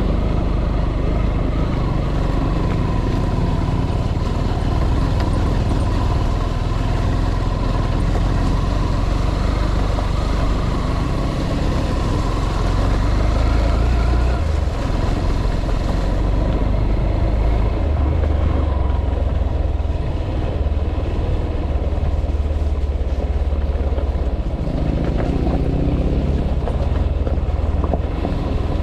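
A vehicle in motion, its engine and road noise running steadily with a heavy low rumble.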